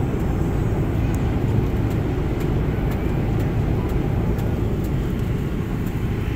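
Jet airliner cabin noise in flight: an even, deep rush of engine and airflow noise heard from a window seat.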